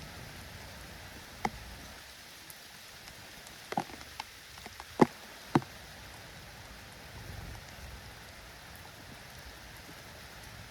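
Steady light rain falling, with a few sharp taps scattered through it, the loudest a pair about five seconds in.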